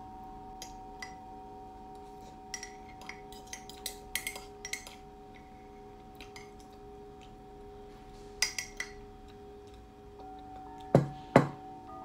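A spoon clinking against a cup and dishes in small clusters, with two louder knocks close together near the end, over steady sound-healing music of sustained ringing tones.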